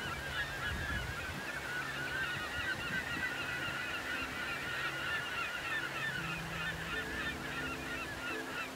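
A large flock of birds calling continuously: many overlapping short, high, honking calls with no break.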